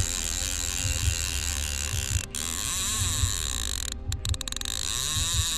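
Saracen fly reel ratcheting rapidly as line is wound on and pulled off while a hooked salmon is played.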